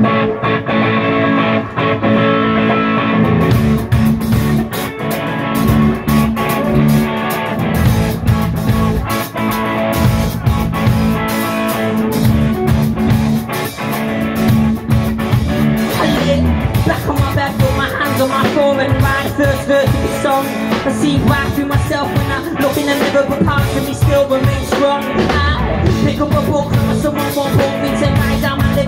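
Live rock band playing through a pub PA: bass guitar, drum kit and a singer on microphone. The cymbals come in about three and a half seconds in, filling out the sound.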